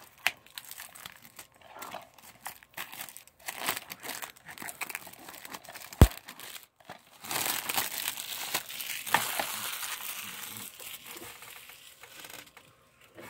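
Plastic shrink-wrap crinkling and tearing as it is pulled off a DVD case, with scattered clicks and one sharp snap about six seconds in, then a long stretch of continuous crinkling.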